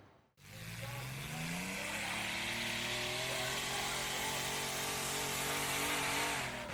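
A motorsport engine starts up after a brief silence, its pitch rising gently over the first couple of seconds and then running steadily, with a wavering higher whine above it.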